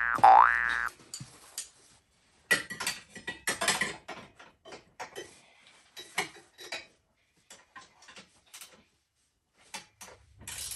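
A rising 'boing' sound effect ends in the first second. Then comes an irregular run of small metallic clicks and clinks from a hand ratchet and wrench tightening bolts on an ATV frame.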